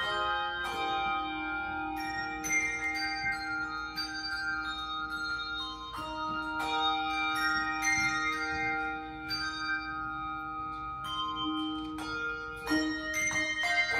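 Handbell choir ringing: struck chords and melody notes that ring on and overlap, with a quicker run of notes near the end.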